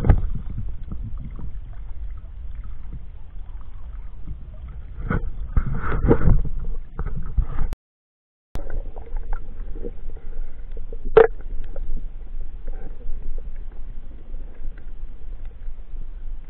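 Water sloshing and splashing around a waterproof action camera held at the surface while swimming, with a few sharper splashes. The sound cuts out completely for under a second about eight seconds in.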